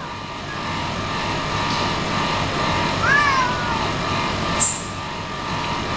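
A cat meows once about three seconds in, a short call that rises and then falls in pitch, over a steady mechanical hum. A brief sharp high-pitched sound follows a second and a half later.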